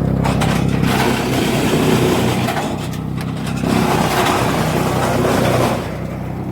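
Wood chipper running with a steady hum, with two long noisy spells as wood is fed in and chipped, the first starting about a second in and the second ending near the end.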